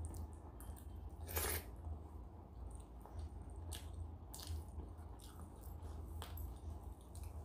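Fingers squishing and mixing rice and dal on a metal plate, with chewing of a mouthful of rice, over a low steady hum. One brief, louder squish about a second and a half in, with a few fainter ones later.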